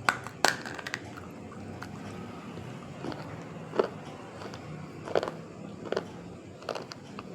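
Close-up crunching as broken pieces of something white and brittle are bitten and chewed: a couple of sharp crunches right at the start, then single crunches about once a second.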